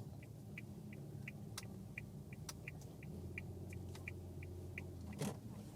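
Suzuki Spacia Base kei car's small three-cylinder engine running low, heard from inside the cabin while the car parks. A faint electronic beep repeats about three times a second throughout, and a soft knock sounds near the end.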